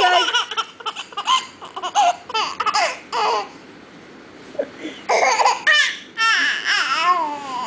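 Baby laughing in short, high-pitched bursts, with a pause of a second or two midway before the laughter starts again.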